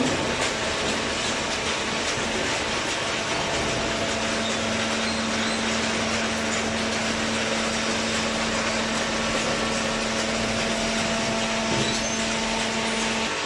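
Hydraulic carton baler running: the electric motor and hydraulic pump give a steady mechanical noise, and a steady hum sets in about three and a half seconds in and stops shortly before the end.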